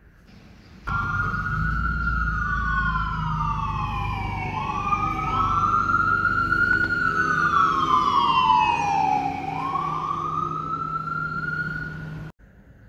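Emergency-vehicle sirens wailing, two overlapping slow rising and falling sweeps, over a low rumble. The sound starts suddenly about a second in and cuts off abruptly near the end.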